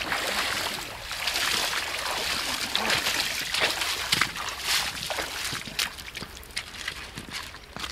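Splashing and sloshing of shallow river water as a person wades through it in waders, with a trout in a landing net; the splashing thins out and grows quieter near the end.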